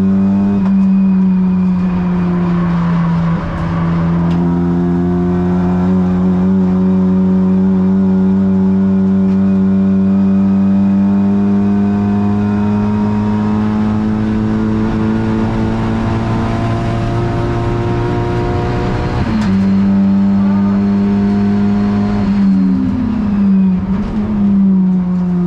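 Engine of a Honda Civic Type R (FL5) race car, a turbocharged 2.0-litre four-cylinder, heard onboard at high revs. The note holds steady for long stretches, drops once a few seconds in, jumps back up a little past the middle and dips and rises again near the end, like gear changes.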